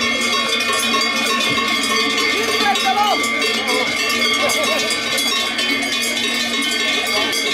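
Many large cowbells on a passing herd of cows clanging and ringing together in a dense, continuous jangle.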